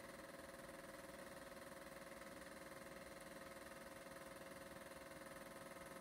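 Super 8 film projector running: a faint, steady mechanical whir with a fast, even flutter.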